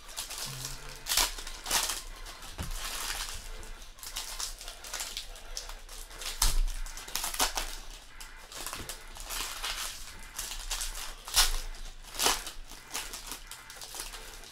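Foil trading-card pack wrappers being torn open and crinkled by hand: irregular crackling, with a handful of louder, sharper crackles.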